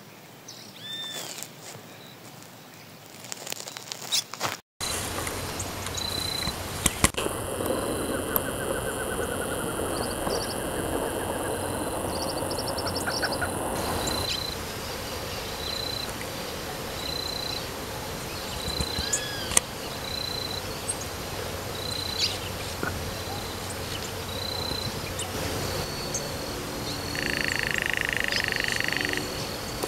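Wildlife ambience by a muddy pond: a short high chirp repeats about once a second, with a few scattered bird-like calls.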